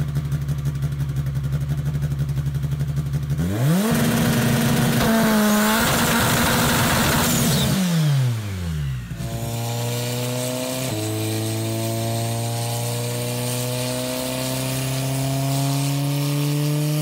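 Turbocharged Volvo Redblock four-cylinder race engine idling with a lumpy, pulsing note, then revved up quickly and held at a higher speed for about four seconds before dropping back. After a cut, the engine pulls under load on a chassis dyno, its pitch climbing slowly and steadily, with a brief dip about two seconds into the pull.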